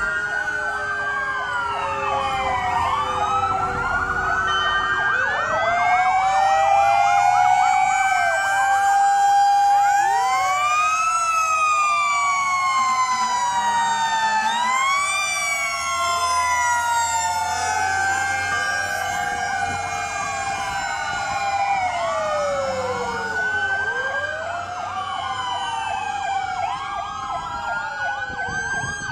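Several fire truck sirens wailing at once, each rising and falling out of step with the others so the wails overlap and cross.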